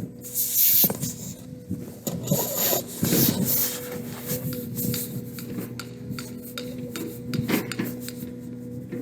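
Rubbing and scuffing noises close to the microphone, irregular throughout, over a steady low hum.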